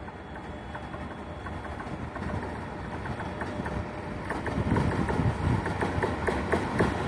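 3ES5K 'Ermak' three-section electric freight locomotive and its freight train approaching while picking up speed. The rumble of wheels on rail grows steadily louder, with sharp clicks that become stronger from about four seconds in as it draws near.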